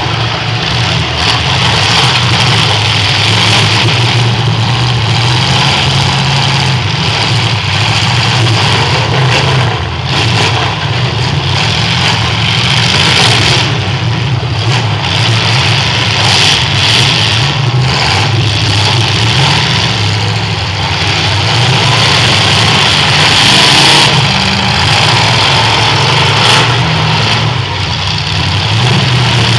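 Several demolition-derby cars' V8 engines running and revving loudly together, with a few short knocks from cars hitting each other.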